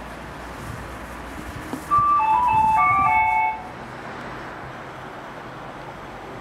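A railway station's loudspeaker chime: a short electronic melody of several clear notes, about two seconds in and lasting a second and a half, the signal that comes before a platform announcement. Steady outdoor background noise around it.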